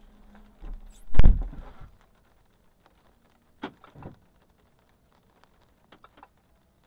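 A car door shut with a single heavy thump about a second in, while a low hum dies away just after it; a few faint short knocks follow.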